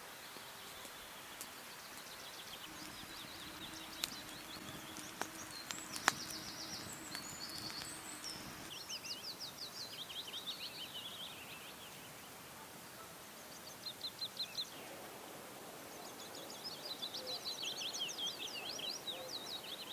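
Small songbirds singing in repeated fast trills over a faint steady hiss, with a faint low hum in the first half and a few sharp clicks around four to six seconds in.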